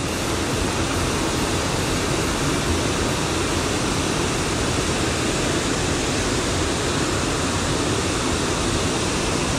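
Steady rushing noise of heavy rain falling on the water, mixed with water pouring through the dam's open spillway gates.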